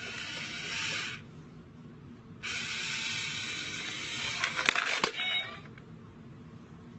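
Cat hissing twice: a hiss of about a second, then a longer one of about two and a half seconds.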